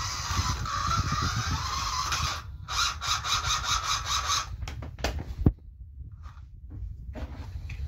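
Scalextric slot car running on a dirty plastic track, its small electric motor whining and rattling. About two and a half seconds in the whine drops away and gives way to a fast, even ticking, then a sharp click comes about five and a half seconds in as the car is handled. The motor whine comes back near the end. These are secondhand cars that need cleaning and servicing.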